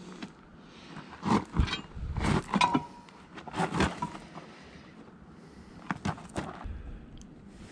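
Steel tire iron clanking and scraping against the steel rim of a loader wheel while prying at the tire bead, in four or five rough bouts with a brief metallic ring.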